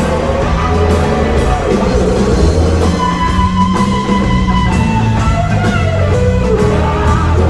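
Blues-rock band playing: lead electric guitar with bent, sliding notes over bass and drums.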